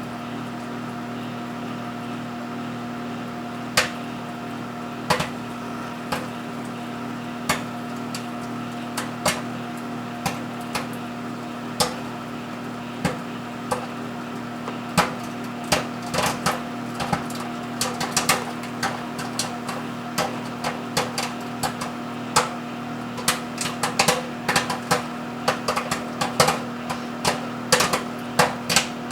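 Microwave oven running with a steady hum while a mini bag of Act II Butter Lovers microwave popcorn pops inside. The pops start about four seconds in as scattered single pops and grow to frequent popping near the end.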